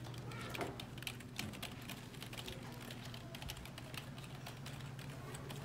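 Fast typing on a computer keyboard: a continuous run of quick key clicks over a low, steady hum.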